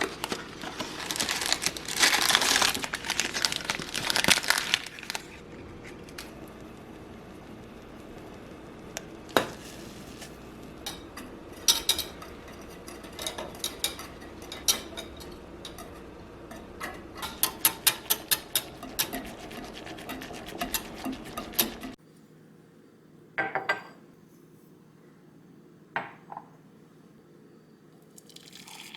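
Dishes and cutlery clinking and clattering as they are handled, with a run of quick light clinks in the middle. About three quarters of the way through, the clatter stops abruptly, and only a few separate clinks follow.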